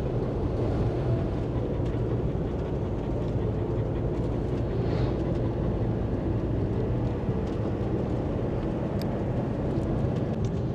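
Steady engine and road noise heard from inside the cab of a moving Fiat-based motorhome, a low even rumble with no change in pace.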